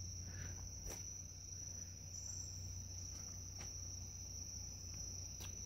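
Crickets trilling in the roadside forest: one steady, unbroken high-pitched note with a faint low hum underneath.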